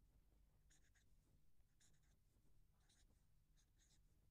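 Faint scratchy strokes of hand writing or drawing, about five short clusters spaced roughly a second apart, over near silence.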